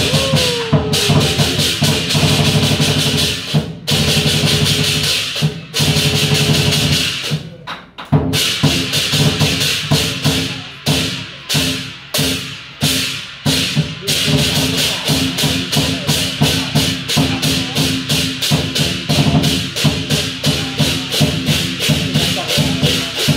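Lion dance percussion: a Chinese drum and crashing cymbals beating out a rhythm. It breaks off briefly a few times in the first third, then settles into a fast, even beat.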